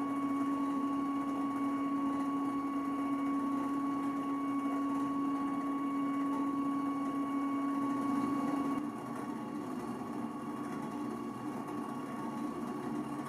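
Stepper motor driving a 3D zoetrope's rotating drum: a steady mechanical hum with a constant whine above it. About nine seconds in it becomes a little quieter and the steady tones less clean.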